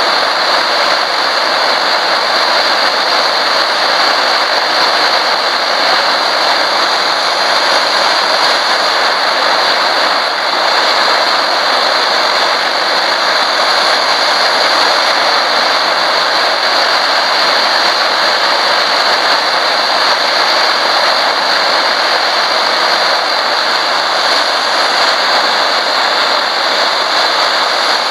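MSR DragonFly liquid-fuel stove burning at full flame with a loud, steady rushing roar.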